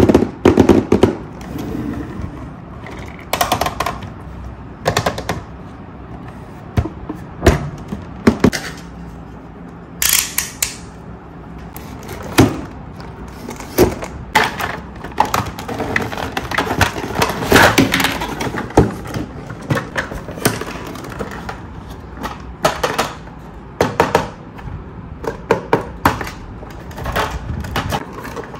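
A cardboard toy box being handled and opened by hand: irregular taps, knocks and scrapes of the cardboard, a utility knife cutting into the box, and the rustle of the cardboard insert as the toy is freed from its wire ties.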